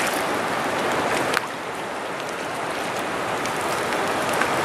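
Muddy floodwater of the South Umpqua River at flood stage rushing past the bank: a steady rushing noise.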